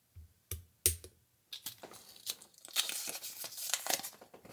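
Three short handling knocks, then blue painter's tape being pulled off its roll with a crackling tear that lasts about three seconds and grows louder.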